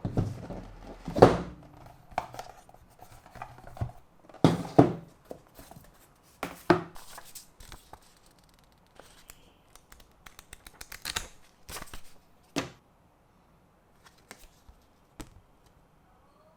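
Keyboard packaging being opened and handled: irregular scrapes, rustles and tearing, with a few sharp knocks, loudest about a second in and again near five seconds, thinning out toward the end.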